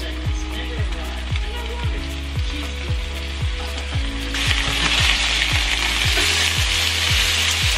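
Garlic-salted chicken strips sizzling in hot oil in a frying pan; the sizzle grows clearly louder about four and a half seconds in, as the pieces are moved with a slotted spatula. A steady background music beat, about two thumps a second, runs underneath.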